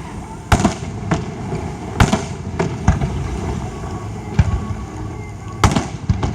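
Aerial fireworks exploding: about seven sharp bangs at irregular intervals, each with a short echo. The loudest come about half a second in, about two seconds in and near the end.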